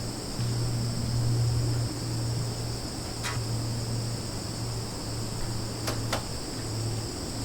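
Crickets chirping in a steady chorus over a low steady hum, with a few faint clicks about three and six seconds in.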